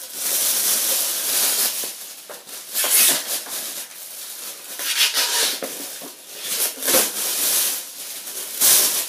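Crinkly rustling of packaging being handled, coming in several bursts with a few light knocks among them.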